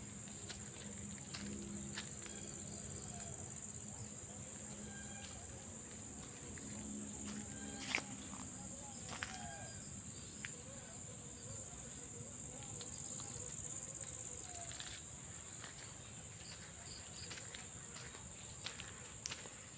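Steady high-pitched drone of an insect chorus, with scattered faint clicks and a sharper click about eight seconds in. A low hum sits underneath for roughly the first half.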